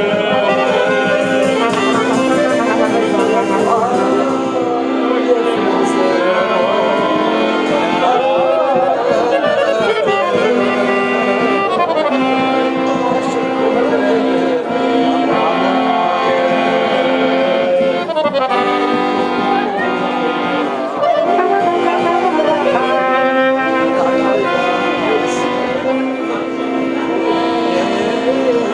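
Live folk band music: a trumpet and other brass play the melody over an accordion, with held notes and quick runs.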